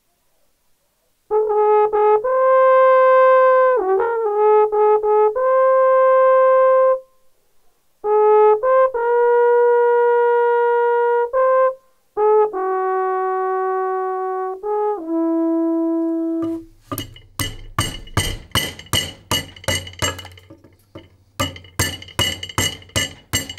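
Slovak fujara trombita, a long conical wooden shepherd's trumpet without finger holes, sounding signal calls of long held notes in three short phrases, the last stepping downward. About seventeen seconds in it gives way to quick repeated knocks of a hand gouge cutting into wood, over a steady low hum.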